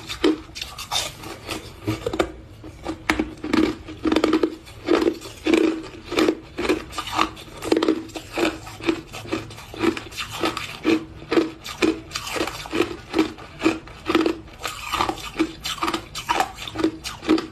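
A person chewing crushed ice close to the microphone: crisp crunches in a steady chewing rhythm, about two a second.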